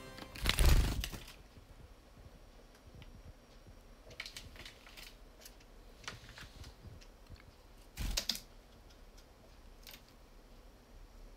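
Scattered light clicks of computer keyboard keys, with two louder brief thumps and rustles, the loudest about half a second in and another about eight seconds in.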